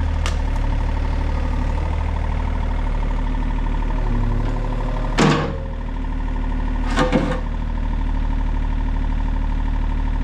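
John Deere excavator's diesel engine running steadily, with two sharp knocks about five and seven seconds in.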